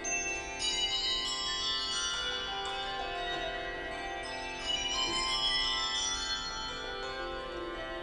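A set of twenty-four handbells being rung in a change-ringing touch: a fast, unbroken stream of overlapping bell strikes, each note ringing on under the next.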